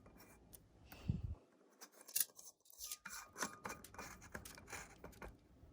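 Light clicks, taps and scraping of a table lamp's metal and plastic parts being handled and fitted together as the bulb goes into its socket.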